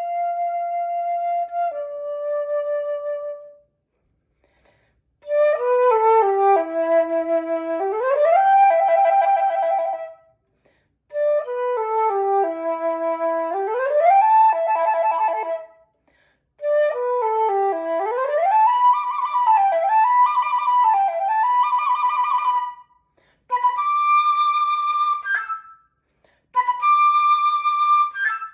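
Solo flute playing unaccompanied in phrases broken by short pauses. It opens on held notes, then plays quick falling runs that sweep back upward, and near the end gives short repeated high held notes.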